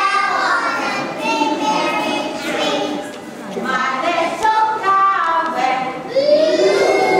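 Group of young children singing a song together.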